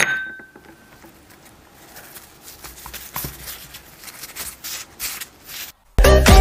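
Knife cutting a soft chocolate mochi on a wooden cutting board: a sharp click with a short ring at the start, then faint, irregular soft taps and knocks of the blade and hands on the board.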